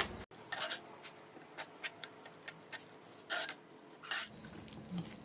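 A spoon clicking and scraping against a bowl at irregular moments as the eggplant chutney is mixed.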